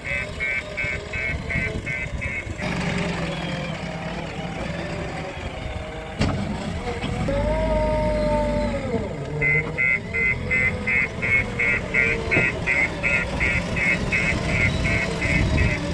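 Diesel machinery of a backhoe loader and tractors running, with a fast repeating high beep, about three a second, for the first couple of seconds and again through the second half. Midway the engine pitch rises and falls once as it revs.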